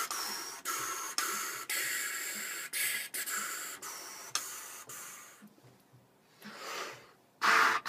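Wind patterning: a relaxed stream of air blown in a run of short and long hissing puffs, the tongue rising and falling so that the pitch of the wind traces a tune. After a pause and a quick breath near the end, a louder, fuller rush of air goes into the trumpet.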